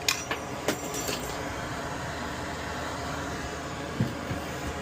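Steady whoosh of air blowing, with a few light clicks of metal tools on the circuit board in the first second and a soft knock near the end.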